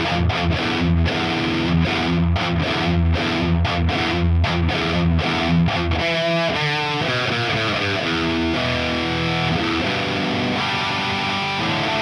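1987 Charvel Model 6 electric guitar played distorted through a modded 1978 Marshall Super Bass head and a 4x12 cab with Celestion G12K-100 speakers. It plays tight, stop-start low riffing for about six seconds, then a quick run of single notes and held, ringing chords.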